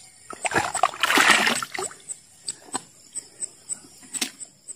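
Shallow river water splashing for about a second, then scattered drips and small splashes. A faint, high, regular ticking runs about three times a second.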